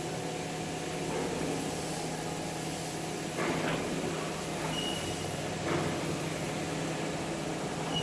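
HVAC duct duplex lock forming machine running, its electric motor and chain drive turning the roll stations: a steady mechanical hum with a constant low tone. Two brief clatters come a little past three seconds in and near six seconds in, with a short high squeak about five seconds in.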